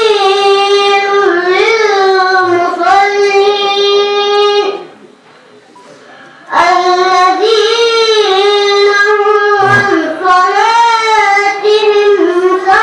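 Quranic recitation (tajweed) chanted in a high voice, with long held and ornamented notes. There is a break for breath of about a second and a half near the middle.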